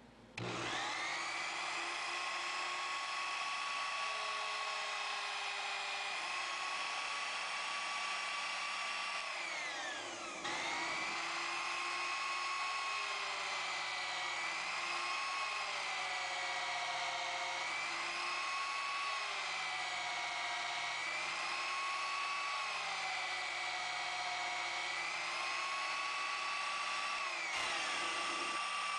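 Sherline mini lathe's motor running with a steady whine that wavers slightly in pitch. Its pitch falls and comes back up about ten seconds in, and falls again near the end.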